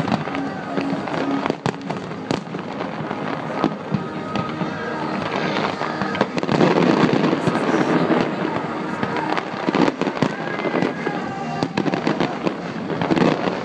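Fireworks display: a dense, continuous run of bangs and crackling bursts, heaviest from about six to eight seconds in.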